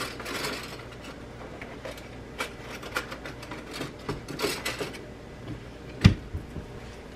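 Kitchen handling while tomato paste is spooned out of its can: scattered light clicks, clinks and scrapes of a spoon against the can, and one heavy thud on the counter about six seconds in.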